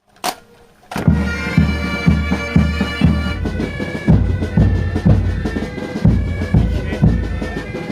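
Pipe band playing: bagpipes sounding a held melody over a steady drone, with a bass drum beating about twice a second. It starts about a second in, after a brief click.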